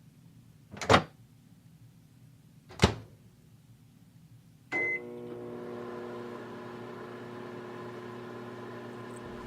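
Two sharp clunks, then a short beep about five seconds in, after which a microwave oven starts running with a steady hum, heating water for a hot water bottle.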